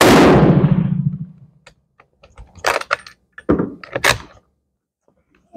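Steyr M95 long rifle in 8x50R Mannlicher firing a single shot, the report dying away over about a second. It is followed by a few sharp metallic clacks between about two and a half and four seconds in as the straight-pull bolt is worked.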